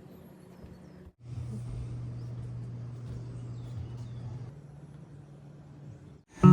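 Steady low engine hum of a vehicle running, with a faint hiss; it weakens about four and a half seconds in.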